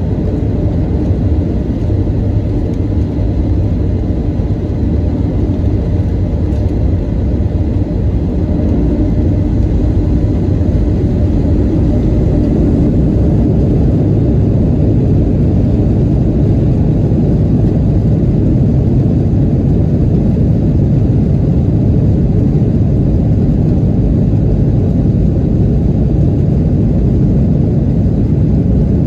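Boeing 737-800 cabin noise heard from a window seat: a steady rumble of its CFM56-7B engines and airflow with faint steady whine tones, growing a little louder and deeper about eight seconds in.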